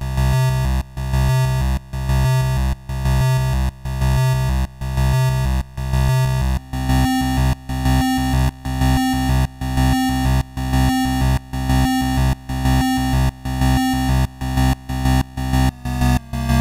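Atari ST chiptune music from the YM-2149 sound chip: buzzy square-wave bass and tones in regular pulses, a little under one a second. A higher melody line comes in about seven seconds in, and the pulses quicken near the end.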